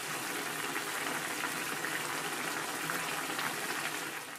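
Seasoned broth boiling hard around pieces of thick fried tofu in a pan: a steady, crackling bubbling that cuts off right at the end.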